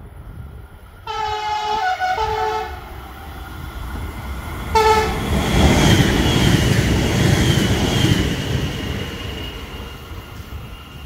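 Electric passenger train sounding its multi-tone horn, a long blast with a brief break about a second in and a short blast about five seconds in, then rushing past at speed with wheel and rail noise and a high whine, fading away near the end.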